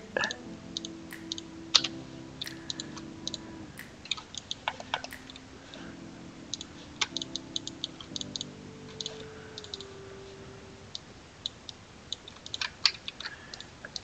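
Computer mouse clicks and keyboard taps at a desk, short sharp clicks coming irregularly, a few at a time, while a CAD model is worked on.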